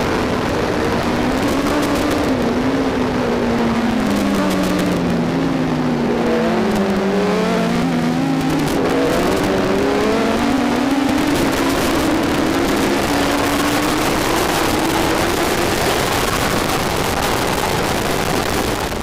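Kawasaki ZX-10 inline-four race engine heard onboard at speed, with wind rush. The engine note drops in steps as the bike brakes and downshifts into a corner. From about nine seconds in it rises again as the bike accelerates out.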